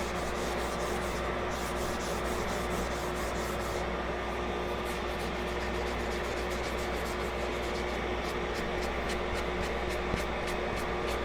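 Sanding sponge rubbed back and forth over a torch-charred wooden handle in quick, even strokes, knocking off the charred grain to smooth the wood. A steady hum runs underneath.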